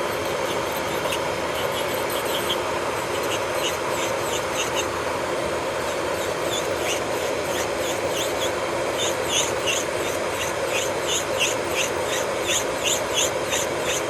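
Electric nail drill (e-file) running steadily, with short, quick scratchy strokes as the bit works over the gel on a nail; the strokes come faster in the second half, a few a second.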